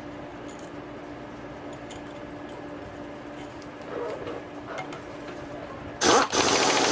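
Impact wrench hammering the flywheel nut tight with a fast, loud rattle, starting suddenly about six seconds in. Before it, only a steady low hum and a few light clicks.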